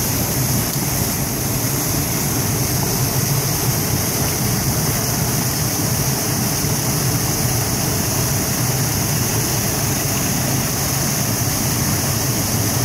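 Water pouring over a small dam spillway and churning into the pool below: a steady, even rush of falling water.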